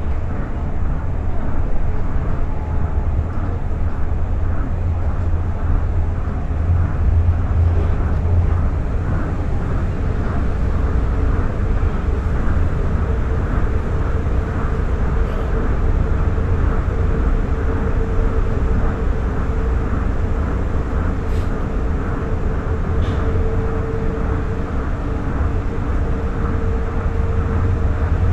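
Tokyo Monorail straddle-beam train running at speed, heard from inside the car: a steady low rumble with a steady whine held at one pitch over it.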